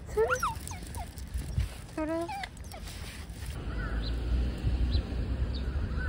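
Dog whining and yipping in short, high calls that bend up and down, in two bouts during the first half, then stopping. A steady low rumble fills the second half.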